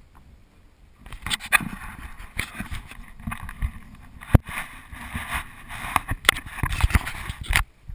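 Camera handling noise: scraping and rubbing with sharp knocks as the camera is moved about and pressed against a neoprene wetsuit, starting about a second in and cutting off abruptly near the end.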